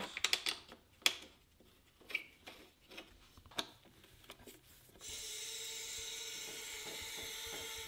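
A few light clicks and knocks as the dirt bike's silencer is fitted onto the exhaust pipe, then, about five seconds in, a steady hiss as the hydraulic motorcycle lift table is let down, stopping suddenly near the end.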